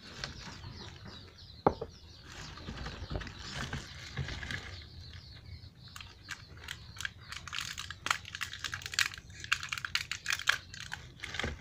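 Plastic bag and wrapping crinkling and rustling as they are handled, heard as an irregular run of crackling clicks that grows denser in the second half, with one sharp click about a second and a half in.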